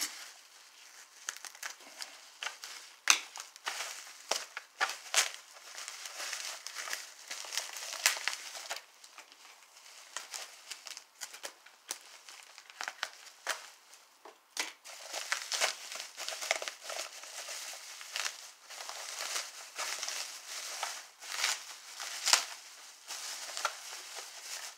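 Plastic bubble wrap crinkling and crackling in the hands as it is pulled and unwound from a packed model train piece, in irregular on-and-off handfuls with a few louder snaps.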